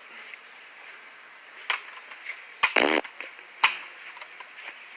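BB gun shooting: two sharp cracks, about 1.7 and 3.7 seconds in, with a short, loud buzzy burst just before the second. Crickets chirp steadily in the background.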